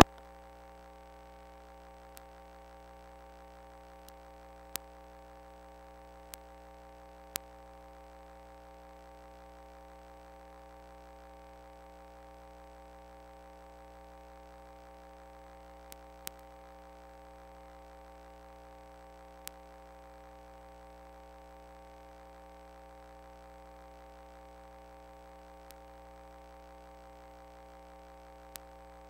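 Steady electrical hum made of several fixed pitches, with a few faint clicks scattered through it.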